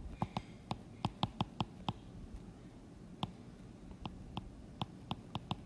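Stylus tip tapping and clicking on an iPad's glass screen while handwriting Chinese characters: a series of short, sharp clicks in two runs, with a pause of about a second between them.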